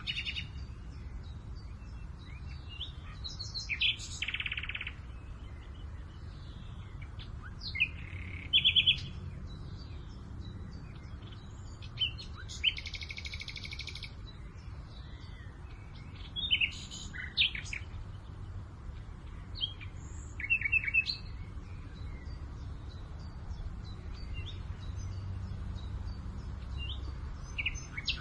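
Songbirds chirping and trilling in short phrases every few seconds, several of them fast buzzy trills, over a steady low rumble of wind.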